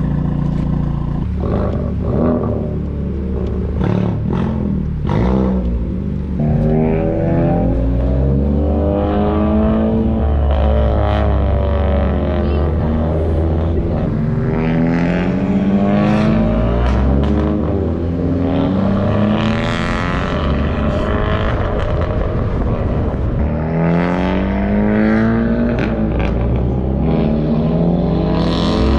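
Honda Civic Type R's turbocharged 2.0-litre four-cylinder, running catless with a straight-piped exhaust: a steady low note for the first few seconds, then several long climbs in pitch, each dropping back before the next.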